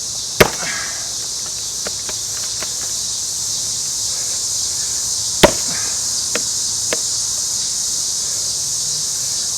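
Two hard axe blows into a Scots pine round, about five seconds apart, with a few lighter knocks between them. A steady chorus of insects runs underneath.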